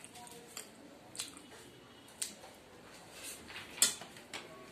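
Wet chewing and lip-smacking from someone eating soft dumplings, with about six short, sharp smacks spread through, the loudest near the end.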